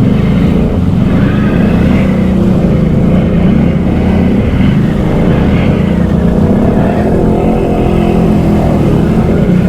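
Can-Am Outlander XMR ATV's V-twin engine running loud and steady under load while working through a mud trench, the engine note wavering slightly in pitch.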